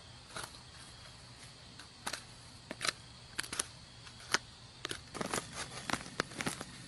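A hand tool scraping and digging through dry, loose soil, giving irregular short scrapes and crunches that come thicker near the end.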